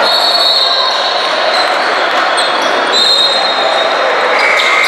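Sound of a basketball game in a gym: a steady wash of crowd noise with a ball bouncing on the court and several high-pitched squeaks, one held tone starting near the end.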